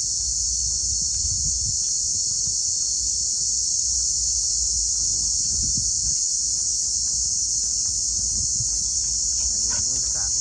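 Dense insect chorus: a loud, steady, high-pitched shrilling.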